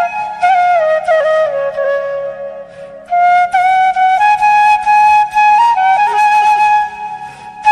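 Bamboo flute (bashi) playing a slow folk melody with sliding, bent notes; the phrase dies away about two seconds in and a new one starts about a second later.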